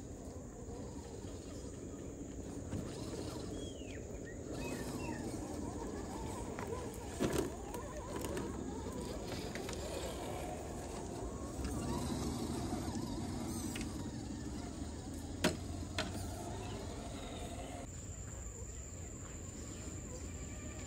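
Scale RC crawler truck driving over a dirt trail: its small electric motor and geared drivetrain whine while the tyres grind over dirt and leaves, with two sharp knocks, one about a third of the way in and one about three quarters in.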